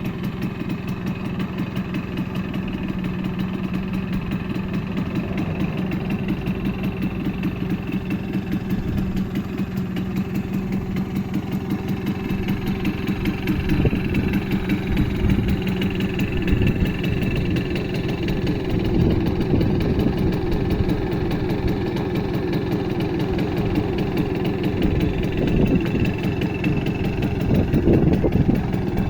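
Simson S51B moped's 50 cc two-stroke single-cylinder engine idling steadily through its stock exhaust, lifting slightly in speed a few times in the second half.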